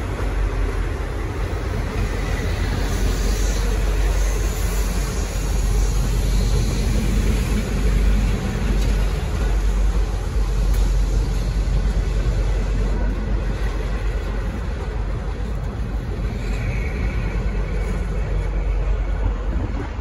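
Passenger carriages of a departing diesel-hauled train rolling past at low speed: a steady rumble of wheels on rail.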